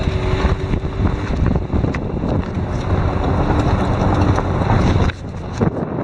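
Wind buffeting the microphone held out the window of a moving Hyundai car, over the steady rumble of the car driving along a dirt track. The wind noise drops briefly about five seconds in.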